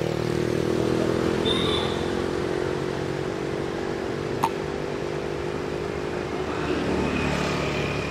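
A motor vehicle engine running steadily, with a single sharp click about halfway through.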